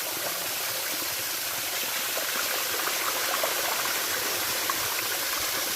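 Waterfall pouring into the rock pool at its foot: a steady rushing of falling water.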